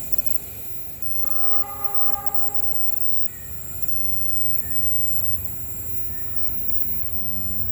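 Diesel locomotive rumbling, with one horn blast lasting nearly two seconds about a second in.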